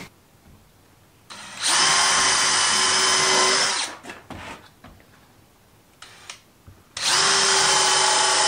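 Power drill running in two steady bursts of about two and a half seconds each, holding one pitch, with a few light clicks in the pause between.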